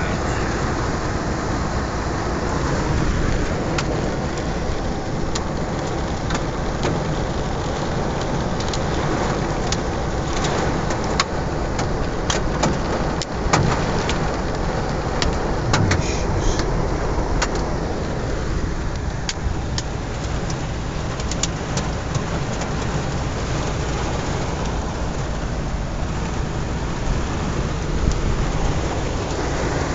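Heavy rain pelting a pickup truck's roof and windshield, heard from inside the cab: a steady hiss, broken by many sharp separate hits.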